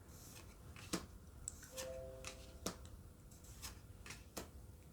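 Faint clicks and taps of trading cards being handled as a booster pack's cards are flipped through, several separate clicks spaced irregularly, with a brief faint tone about two seconds in.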